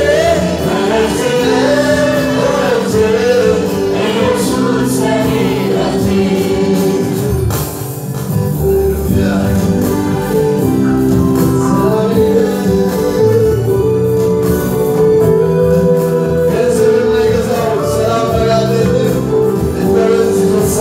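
Live Amharic gospel worship song: a male lead singer on a microphone with a choir, over keyboard accompaniment.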